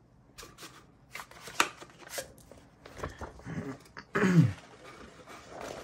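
Paper instruction booklet rustling and scraping as it is handled and slid out of a cardboard kit box, a string of short crinkles. About four seconds in comes a brief vocal sound that falls in pitch.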